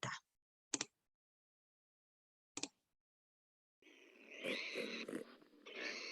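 Recorded pig grunting, starting about four seconds in after a near-silent pause.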